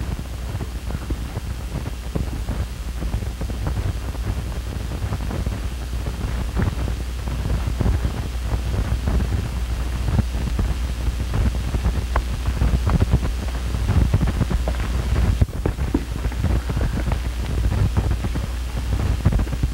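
Steady hiss and low hum of an old film soundtrack, with frequent crackles and pops scattered throughout and no dialogue.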